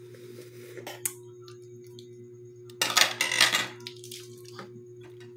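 Hard-boiled balut eggshell being cracked and peeled by hand: a sharp click about a second in, then a loud burst of shell crackling close up a little before halfway, over a steady electrical hum.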